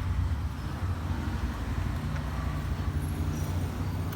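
Steady low rumbling hum of background noise with no distinct event.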